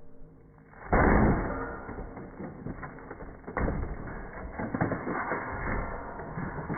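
An old drip coffee machine crashing down after being thrown: one loud impact about a second in, then irregular clattering and knocks as it breaks apart and its pieces tumble, with another sharp hit partway through.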